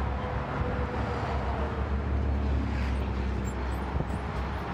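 Road traffic: a motor vehicle driving past, heard as a steady low rumble with a faint tone that drops slightly in pitch.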